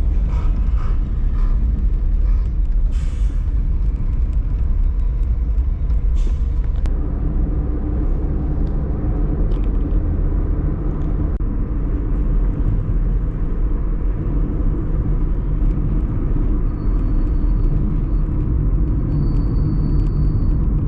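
Car driving on a road, heard from inside: a steady low rumble of engine and tyres, with two short sharp noises about three and six seconds in.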